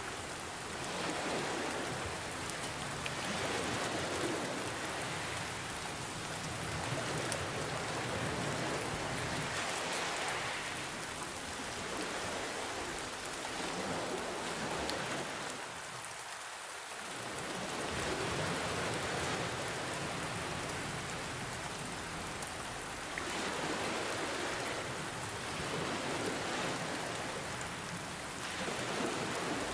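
Steady rain hiss mixed with ocean waves that swell and fall back every several seconds.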